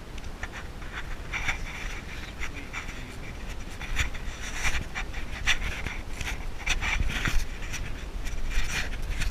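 A person breathing hard close to the microphone in short, irregular breaths, over low rumbling handling noise from a handheld camera.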